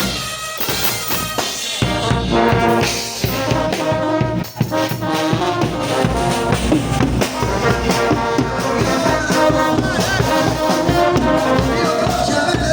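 Brass band playing, trumpets and trombones over drums. For the first two seconds it is mostly drums, then the brass comes in with the full band.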